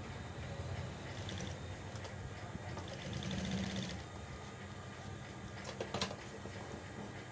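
Industrial lockstitch sewing machine stitching a fabric strip in short runs: a low running hum with spells of fast, even needle ticking, loudest a little after three seconds in. One sharp click about six seconds in.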